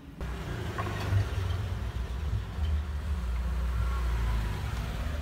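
A low engine rumble, like a motor vehicle running nearby, with faint taps of a knife slicing sausage on a plastic cutting board.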